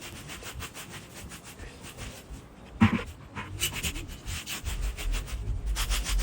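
Dry leaves being scraped into piles in quick, regular strokes, with one short, loud sound about three seconds in.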